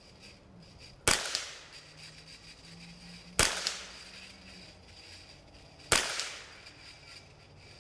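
Three single shots from a 10/22-based semi-automatic .22 LR rifle, evenly spaced about two and a half seconds apart, each a sharp crack with a short fading tail. The first shot is followed a moment later by a fainter tick.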